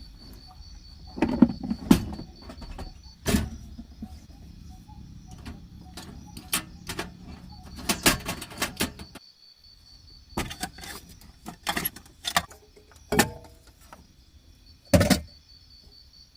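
Irregular knocks and clicks, a dozen or so, from objects being handled or set down, over a steady high insect trill.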